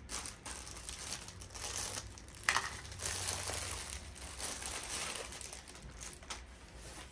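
Plastic packaging crinkling and rustling as a package is unwrapped and handled, in irregular bursts with one sharper, louder crackle about two and a half seconds in.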